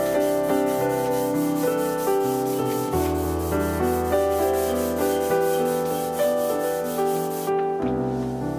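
Background piano music, single notes and chords struck and fading one after another.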